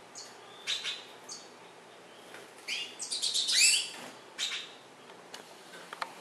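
Caged pintassilgo finches calling: a few short, high chirps, then a quick run of sweeping twittering notes about three seconds in, the loudest part. A few light clicks come near the end.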